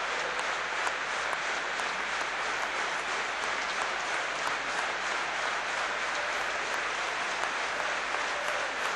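A large football crowd applauding steadily in a stadium.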